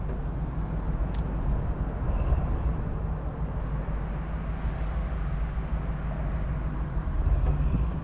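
A steady low mechanical hum and rumble, with one short click about a second in.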